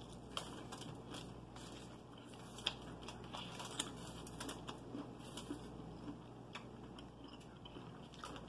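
Faint close-up eating: fried chicken being bitten and chewed, with scattered small crunches and mouth clicks.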